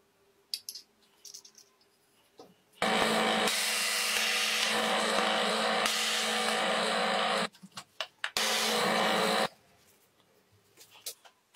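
A small power tool runs at one steady speed in two bursts. The first is switched on about three seconds in and lasts about four and a half seconds; after a few clicks, the second lasts about a second. A few light clicks and handling knocks come before and between the runs.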